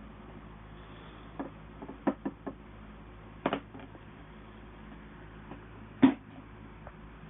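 A padlock and small metal tools being handled on a hard surface: scattered sharp clicks and knocks, a quick cluster of three about two seconds in and the loudest single knock about six seconds in.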